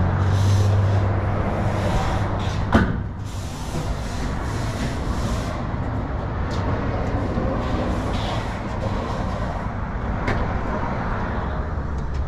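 A 1967 Chevrolet Impala's engine idling steadily with a low hum, and one sharp click or knock a little under three seconds in.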